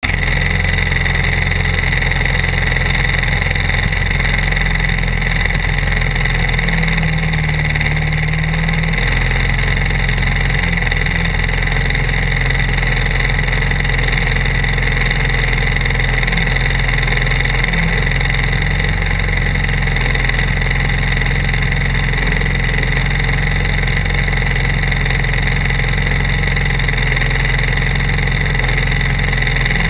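Briggs & Stratton World Formula kart engines, four-stroke singles, idling steadily; the note shifts briefly about seven seconds in.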